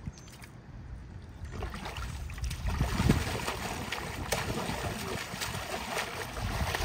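Water splashing and sloshing in a backyard paddling pool, quieter at first and louder from about two seconds in, with a heavier splash about three seconds in.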